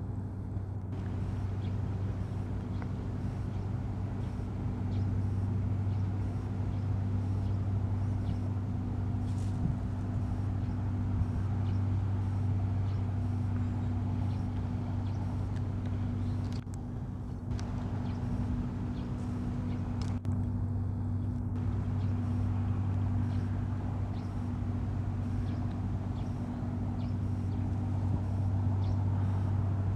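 Steady low engine-like hum, as of a motor running or traffic, unbroken throughout.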